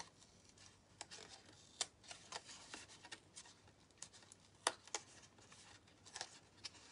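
Card stock being handled: faint rustling and scraping of a folded paper card, with a few sharp clicks and taps, the sharpest a little under two seconds in and near five seconds in.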